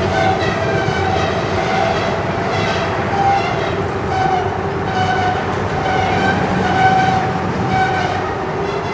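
Freight car wheels squealing against the rails in short, wavering squeals that come and go, over the steady low rumble of the slowly rolling train.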